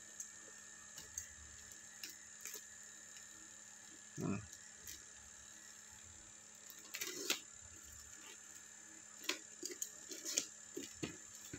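Faint crackles and ticks of packing tape and plastic wrap being slit and peeled off a parcel, coming quicker near the end, over a faint steady hum. A brief low sound comes about four seconds in.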